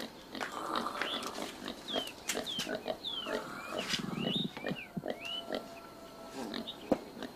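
Farmyard animal sounds: a run of short, high falling chirps and scattered clicks, with one short low grunt about four seconds in.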